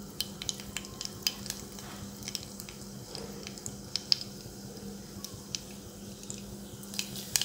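Mustard seeds crackling in hot oil in a stainless steel pressure cooker: scattered sharp pops and ticks over a faint sizzle.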